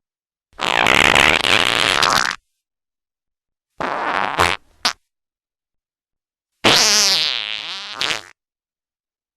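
Three fart sound effects in a row, with silence between them. The first lasts about two seconds. The second is shorter and ends with a quick extra pop. The last has a wavering pitch that sinks as it trails off.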